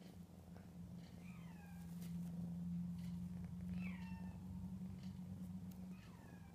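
Neva Masquerade kitten giving three short, high, falling meows, about a second in, in the middle and near the end, over a steady low hum.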